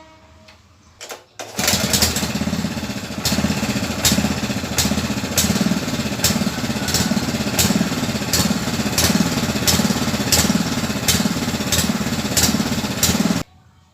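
Honda GX160 single-cylinder four-stroke engine catching after a brief start attempt and running steadily, with a sharp click repeating about every half second or so; it cuts off suddenly near the end.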